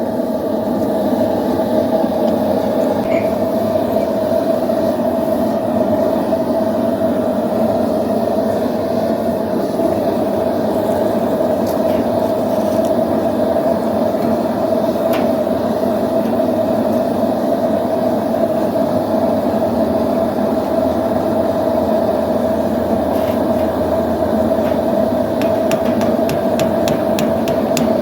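A blacksmith's forge runs steadily with an unbroken roar, as the burner or blower heats the work. Near the end a rapid run of light ticks begins.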